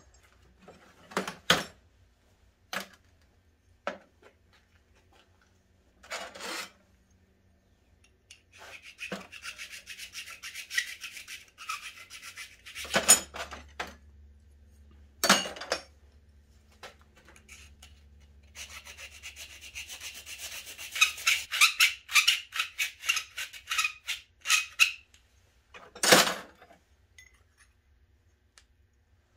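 Hand file rubbing on a short piece of metal pipe in two runs of quick back-and-forth strokes, between scattered sharp clanks of metal tools and pipe.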